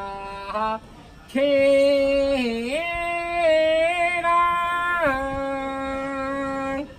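A single voice singing a slow melody unaccompanied, in long held notes that bend and waver between phrases. There is a short breath pause about a second in and another near the end.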